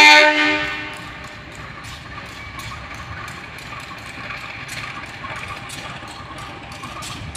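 Diesel locomotive's horn sounding and cutting off about half a second in, then the locomotive's engine running steadily at a distance, with faint sharp ticks scattered through it.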